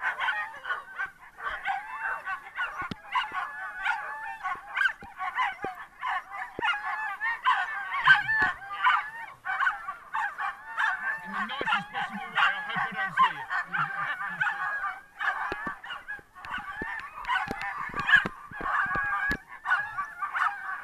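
A team of harnessed sled-dog huskies yelping and howling together in a constant, high-pitched excited chorus, the clamour of dogs straining to run at the start line.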